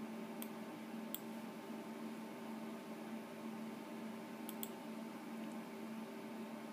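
Faint clicks of a computer mouse navigating a menu: two single clicks in the first second or so, then a quick pair about four and a half seconds in, over a steady hum.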